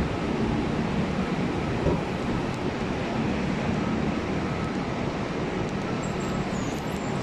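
Steady background noise of a large railway station concourse: an even low hum and rumble with no distinct events standing out.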